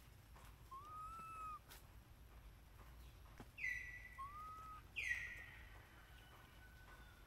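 High whistled animal calls: two loud notes that drop sharply and then level off into a held whistle, near the middle and about five seconds in, with two softer, lower arched notes before them.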